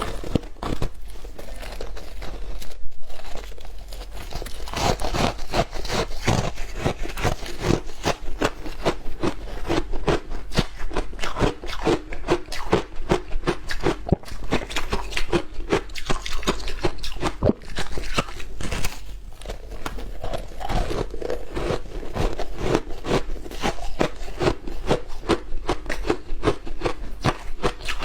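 Frozen matcha ice being bitten and chewed close to the microphone: a continuous run of crisp crunches, several a second.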